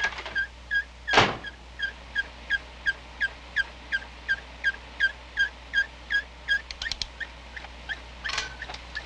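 Window air conditioner squeaking rhythmically as its fan turns, about three short squeaks a second: the unit is wanting oil. A loud knock comes about a second in, and a quick run of clicks near seven seconds.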